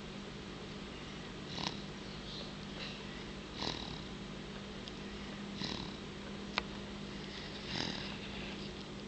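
A three-month-old baby snoring softly in sleep, one noisy breath about every two seconds, over a steady low hum. A single sharp click sounds about two-thirds of the way through.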